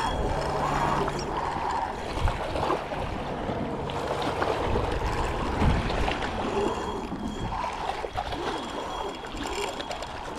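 Small waves lapping and sloshing against shoreline rocks, a steady rush of water, with a low rumble of wind on the microphone.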